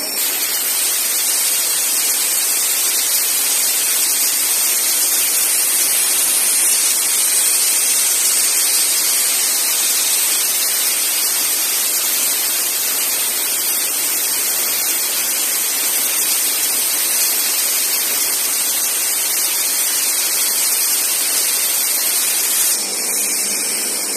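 Steady hiss of a CNC cutting torch cutting metal, with a faint high whistle over it; the hiss drops off about a second before the end.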